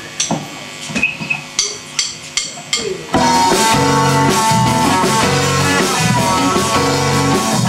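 Live rock band opening a rock and roll song: for the first three seconds a few separate drum hits and guitar chords with gaps between them, then the full band comes in loud, with electric guitars, bass guitar and drums playing steadily.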